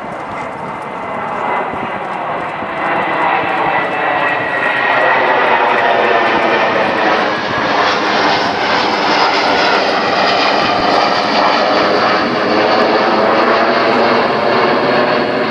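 Second World War fighter's V12 piston engine running as the aircraft lands and rolls out along the runway toward the microphone. It grows louder over the first five seconds, then holds steady.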